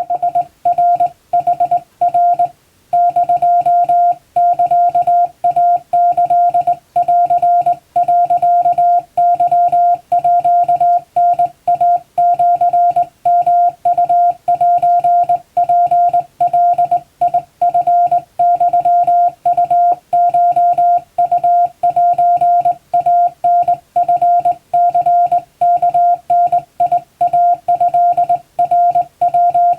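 Japanese wabun Morse code sent by hand on a straight key: a single steady beep keyed on and off in quick dots and dashes, with brief gaps between characters.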